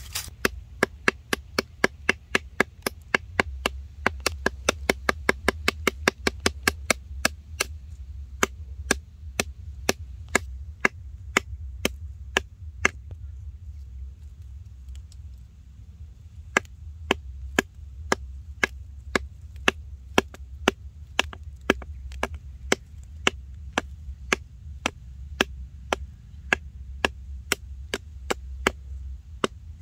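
A blade chopping at a wooden stick in a run of short, sharp knocks: about four a second at first, then slowing to about two a second with a brief pause about halfway.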